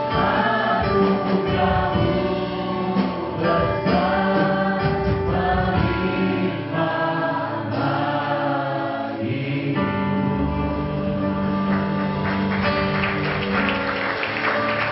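Live Christian worship song sung in Indonesian by several singers, a male lead with backing vocalists, over keyboard and guitar, the sung phrases held on long notes.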